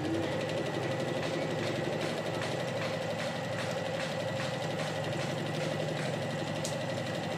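Brother Socie electric sewing machine running steadily at an even speed, its needle stitching fabric with a fast, regular mechanical chatter while sewing its garterizing (elastic) stitch.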